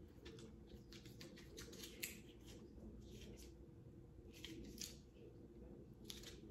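Faint scattered crinkles and clicks of a plastic icing bag being handled, coming in small clusters a few times.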